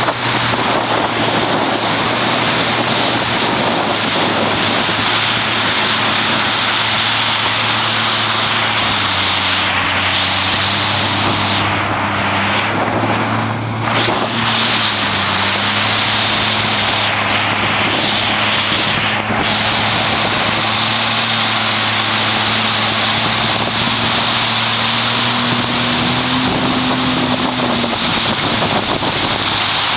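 Marine engine running steadily at high revs under a loud, constant rush of water spray and wind; its hum wavers slightly in pitch, and one tone rises a little and drops out near the end.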